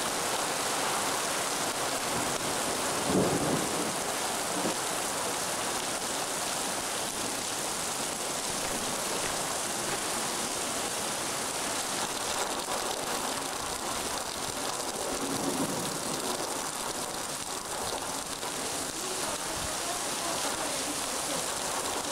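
Heavy rain falling steadily in a severe thunderstorm. Low thunder rumbles come in briefly about three seconds in, the loudest moment, and again a little past halfway.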